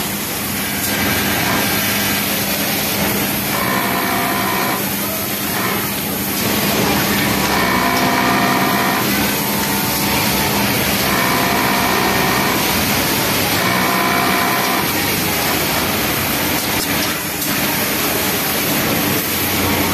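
Pegasus W600 cylinder-bed flatlock sewing machine running in several stretches of a second or two as fabric is fed through, over a steady loud background hum.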